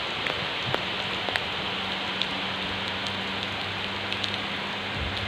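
Steady rain falling, an even hiss with scattered sharp ticks of single drops landing close by.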